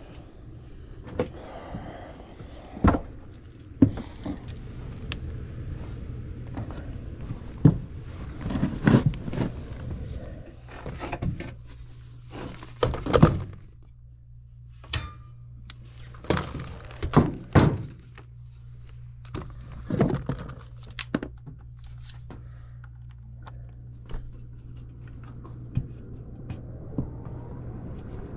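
Scattered thunks and knocks of someone moving through an attic and handling a furnace's sheet-metal access panel, lifting it off and fitting it back, over a steady low hum.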